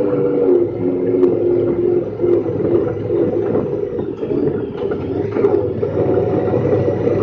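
Honda Pioneer 1000-5 side-by-side's parallel-twin engine running under way at a steady cruise, a droning tone that shifts a little in pitch.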